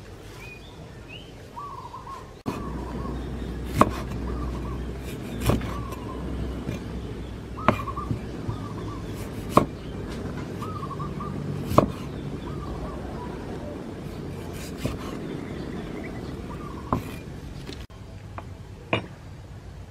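Kitchen knife chopping through limes onto a wooden cutting board, a sharp knock about every two seconds. A bird calls repeatedly in the background.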